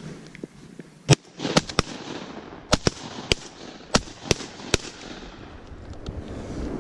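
A rapid, uneven series of about ten sharp cracks over roughly four seconds, the first the loudest.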